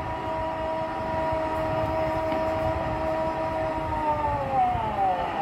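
A sports commentator's drawn-out goal cry, one long note held for about four and a half seconds that slides down in pitch near the end, over a steady stadium crowd roar.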